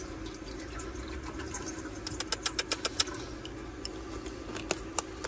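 A steady low mechanical hum. About two seconds in, a quick run of light clicks comes at about seven a second, and a few single clicks follow near the end.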